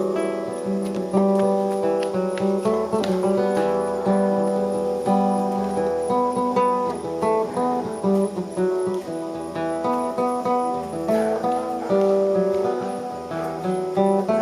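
Music played on a plucked string instrument over held bass notes that change every second or two.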